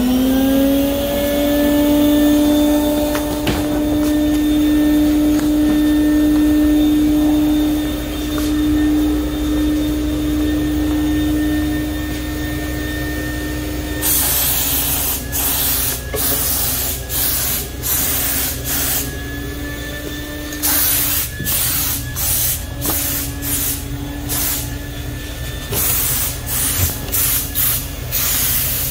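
An electric motor supplying air to the paint spray gun spins up to a steady whine. From about halfway through, the spray gun hisses in short irregular bursts as metal-flake paint is sprayed on in passes.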